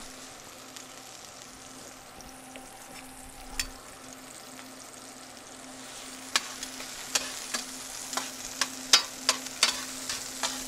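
Swordfish steak and sliced shallots sizzling in hot oil in a frying pan: a quiet steady sizzle, then from about halfway on sharp pops and crackles as the shallots are spread through the oil.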